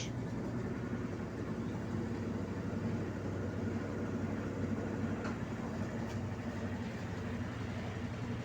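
Brastemp BWK12 12 kg washing machine running with a steady low mechanical hum, with two faint ticks about five and six seconds in. This running noise is the one its owner cannot explain and wants a technician to fix.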